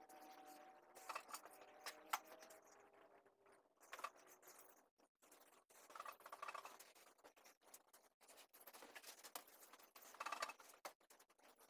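Faint rustling and handling of clothes being folded and packed into a suitcase, with soft scrapes about a second in, around six seconds and near the end.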